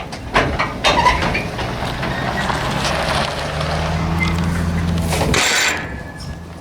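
A vehicle engine runs steadily with a couple of knocks in the first second. The engine sound cuts off sharply about five seconds in and is followed by a short hiss.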